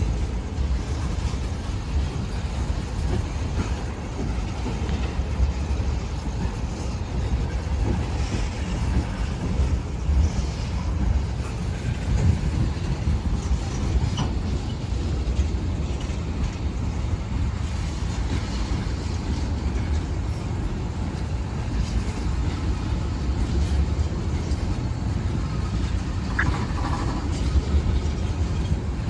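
Freight train of ethanol tank cars rolling past: a steady rumble of wheels on rail with a few light clicks, and a brief thin squeal about three-quarters of the way through.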